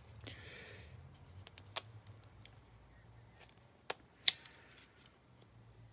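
Scissors cutting a plastic trading-card sleeve: a short rustle of plastic at the start, then a few sharp clicks of the blades, the loudest about four seconds in.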